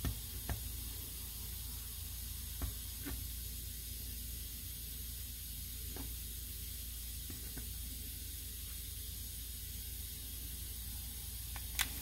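Faint steady sizzling hiss of flux and solder melting under a hot soldering iron on an ignition switch terminal, with a few soft ticks.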